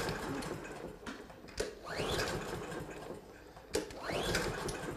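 Briggs & Stratton walk-behind lawn mower engine spun over by its recoil starter rope, three pulls about two seconds apart, each a click and a rising whir that dies away without the engine catching: a mower that won't start.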